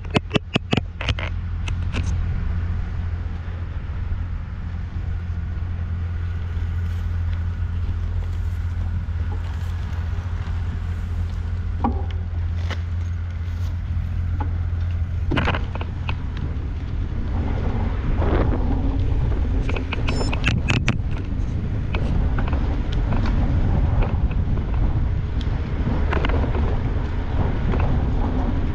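Steady low wind rumble on a GoPro action camera's microphone while riding a mountain bike on a paved path, with tyre noise beneath it. There are a few sharp clicks and knocks: a quick run of them at the start and another cluster about twenty seconds in.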